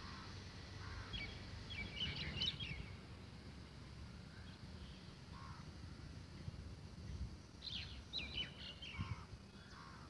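Birds calling in two bouts of short, sharp, high notes, the first about a second in and the second near the end, over a steady low rumble.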